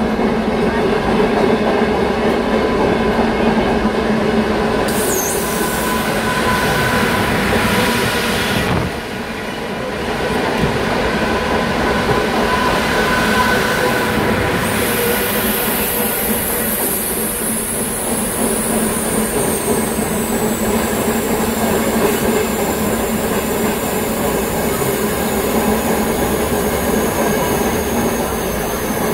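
Steam train's carriages running along the track with a steady rumble of wheels on rails. About halfway through, a high wheel squeal sets in and slowly falls in pitch.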